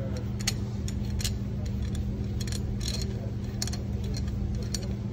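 Light, irregular metallic clicks and ticks as a tape-wrapped pull rod is twisted against the threaded breakaway stud of a tube plug, working it off. A steady low hum runs underneath.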